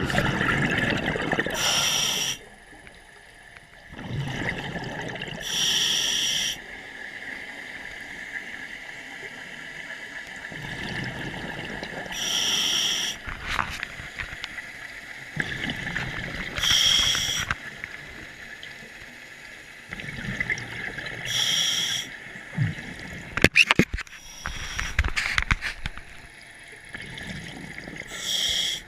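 Scuba diver breathing underwater through a regulator: a short hiss of inhalation roughly every four to five seconds, with bubbly exhalation rumbling in between. A few sharp clicks come in a cluster a little over three-quarters of the way through.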